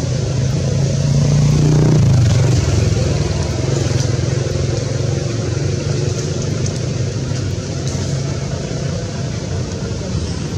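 An engine running steadily with a low hum, louder for a moment about two seconds in.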